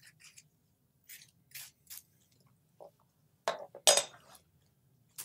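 A metal spoon scraping the seeds out of a halved cucumber in a few short strokes, then a louder clatter about three and a half seconds in as the spoon is set down on the cutting board.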